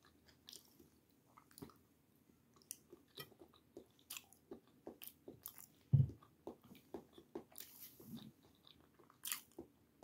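Close-up chewing and mouth sounds of a person eating: soft, irregular clicks and smacks, with one louder low thud about six seconds in.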